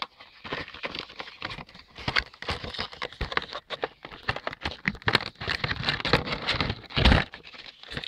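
Cardboard Funko Pop box being handled and opened: rustling packaging with many quick clicks and taps, and a louder thump about seven seconds in.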